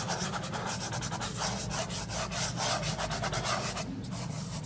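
Fingertip rubbing soft pastel into the paper in quick, repeated scratchy strokes, blending and softening the edges of the clouds.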